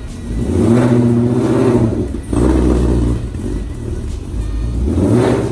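2018 Mustang GT's 5.0-litre Coyote V8, fitted with a Cobra Jet intake manifold and long-tube headers, revved in three swells, each rising and then dropping back.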